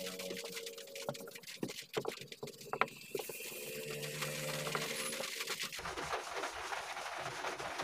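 Scattered clicks and soft knocks of a hand wiping and handling a car's plastic dashboard and instrument trim, with faint low steady tones at times. From about six seconds in a steady hiss takes over.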